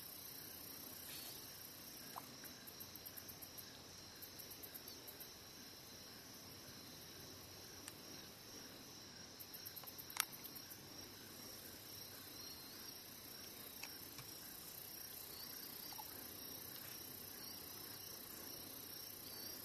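Faint steady chorus of crickets chirping in even pulses. It is broken by a few short trains of fast ticks and one sharp click about ten seconds in.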